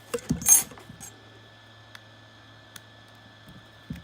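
Clicks and a short clatter as a smartphone and its glass back cover are handled and pressed together on a hard work surface. The loudest comes about half a second in, with a couple of faint ticks later on.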